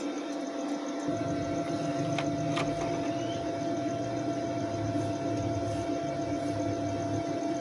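Arc welding machine humming steadily over an even hiss, with a deeper hum starting about a second in.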